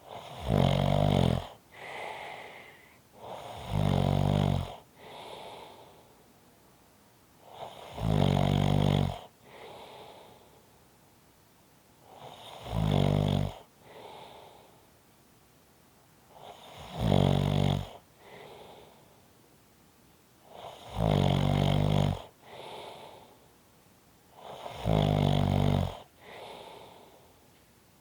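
A person snoring steadily: seven loud, rattling snores about every four seconds, each followed by a softer breath.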